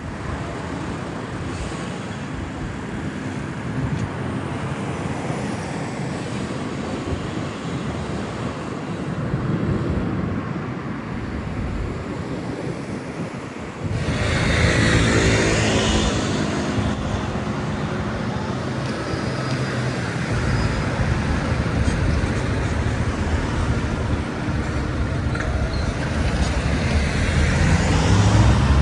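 Motor vehicle engines and road traffic running and passing. About 14 seconds in, the sound cuts abruptly to a louder, closer engine with a steady hum.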